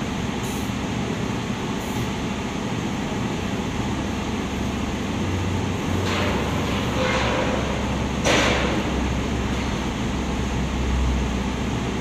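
Two-colour UV-curing screen printing machine with servo drives running: a steady mechanical hum, with short rushing strokes about six and seven seconds in and a louder one a little after eight seconds.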